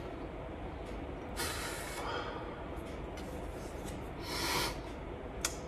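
Two heavy breaths through the nose, close to the microphone, about three seconds apart, over a low steady room hum. A faint click comes near the end.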